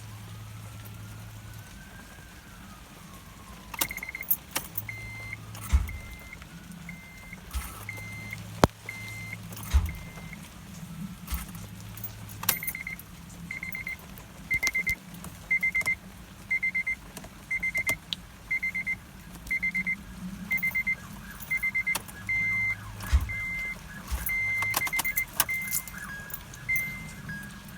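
2005 Acura TL's warning chime beeping over and over, with keys jangling and short low hums, each ending in a click, as the ignition is tried and the car does not start.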